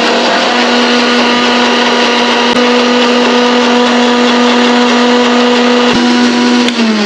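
Old electric mixer grinder running at full speed, grinding a ginger, garlic and green chilli paste in its steel jar: a steady motor whine that winds down with falling pitch near the end as it is switched off at the wall.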